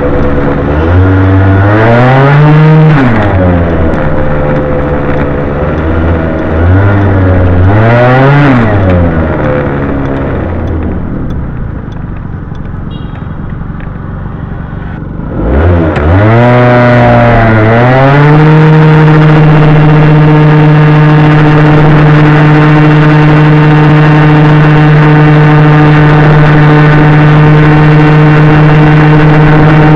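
Honda Gyro Canopy's two-stroke scooter engine running through a Moto Repair Galuz II expansion-chamber exhaust. The revs rise and fall twice in stop-go traffic, sink to a low, quieter note about ten seconds in, then climb again at about fifteen seconds and settle into a steady high-rev note while cruising.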